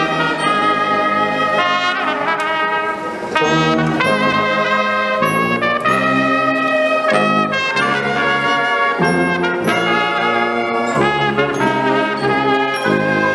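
A brass band playing together in harmony: trumpets carry the tune over low brass, with bass notes changing about every half second underneath.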